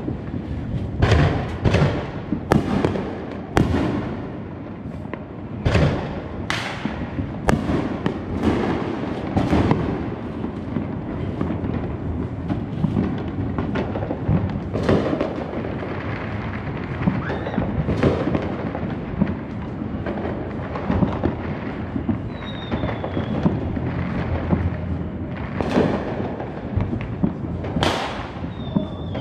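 Fireworks going off all over the neighbourhood: a dense run of sharp bangs over a steady rumble of distant bursts and crackle, thinning out after about ten seconds, with a couple of loud bangs again near the end.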